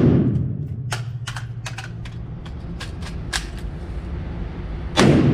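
Rifle shot at the start, ringing off, then a second rifle shot about five seconds in. A string of sharp clicks and rattles falls between them, mostly in the first few seconds.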